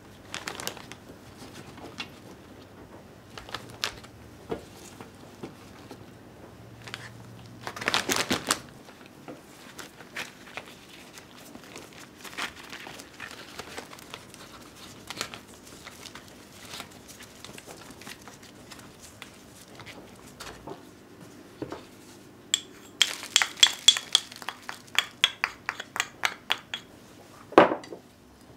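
Plastic zip-top freezer bag crinkling and rustling as mushrooms are pulled apart by hand and dropped in, with a louder rustle about eight seconds in and a quick run of light clicks near the end.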